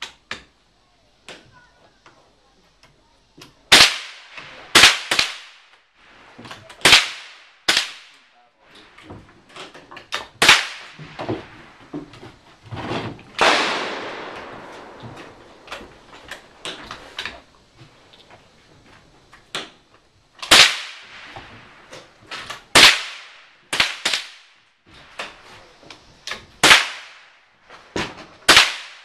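Rifle shots from several shooters on a firing line: about a dozen sharp cracks at irregular intervals, with fainter clicks between them.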